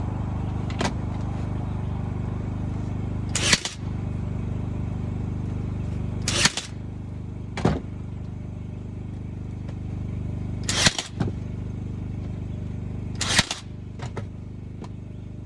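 Nail gun firing about eight times, spaced a few seconds apart, while frame pieces are nailed together, over a steady machine hum.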